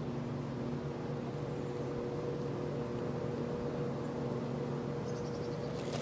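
A motor's steady, even drone throughout, with a few faint high ticks about five seconds in and a brief knock or rustle at the very end.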